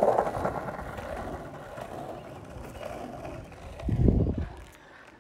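Skateboard wheels rolling on asphalt, a steady noisy rumble, loudest at the very start. A loud low surge of rumble comes about four seconds in before it fades.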